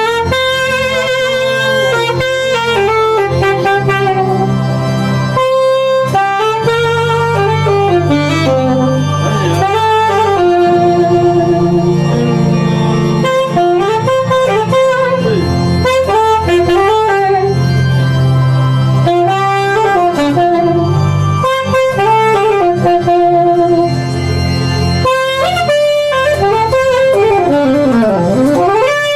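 Instrumental band music led by a saxophone playing a bending melody over a steady bass line, with a slide down and back up in pitch near the end.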